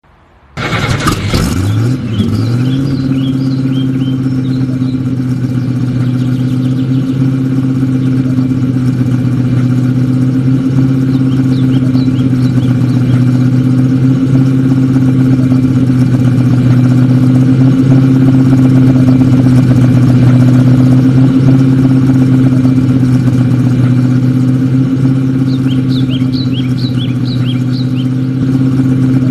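Vehicle engine with a loud exhaust, rumbling a lot. It comes in suddenly about half a second in, rises in pitch over about two seconds, then holds at a steady speed.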